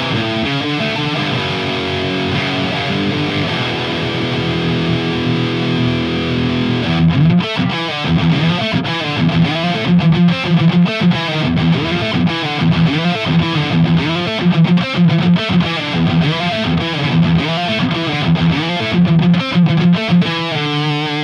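Distorted electric guitar through a Marshall JVM410H tube amp head into a Bogner Uberkab cabinet loaded with Celestion Vintage 30 and G12T-75 speakers, playing old-school metal in standard E tuning. It opens with held, ringing chords, then about seven seconds in breaks into a fast, rhythmic riff that runs on.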